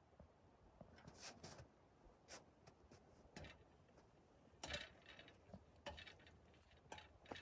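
Near silence with faint, scattered clicks and taps, about one a second.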